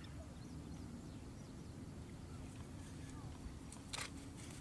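Faint outdoor background: a low steady rumble with a faint hum, and two short clicks about four seconds in.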